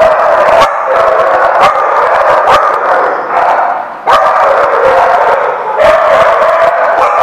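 Small dogs barking and yipping loudly, almost without a break, with a short lull about four seconds in.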